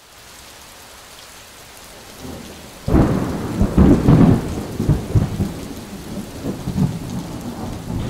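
Steady rain falling, with a sudden crack of thunder about three seconds in that rolls on and slowly fades.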